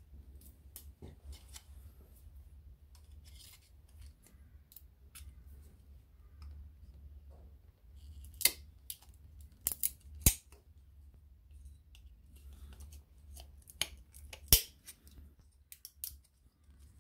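Pocket-knife blade prying and scraping at a thin metal plate, with scattered sharp metallic clicks as the tool catches and slips. The loudest clicks come about halfway through and again near the end.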